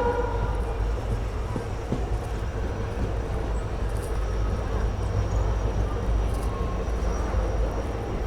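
Passenger train behind a WDP4D diesel locomotive running along the line, heard from aboard: a steady low rumble of engine and wheels. The tail of a locomotive horn blast fades out in the first half second.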